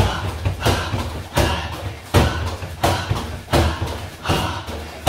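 Barefoot round kicks landing on a freestanding punch bag in a steady rhythm: a sharp thud about every three-quarters of a second, eight in all.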